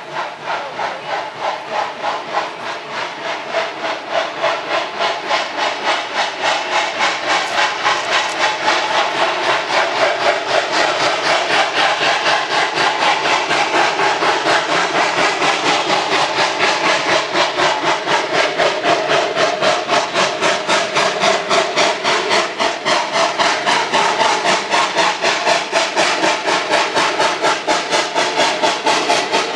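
Narrow-gauge Denver & Rio Grande #346, a 2-8-0 steam locomotive, chuffing as it pulls a passenger train, its exhaust beats coming fast and even. The beat grows louder over the first ten seconds or so as the engine approaches, then holds steady.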